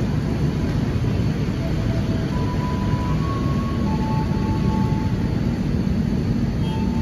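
Steady low rumble of an electric train moving through a station, with a simple tune of thin, held high tones playing over it.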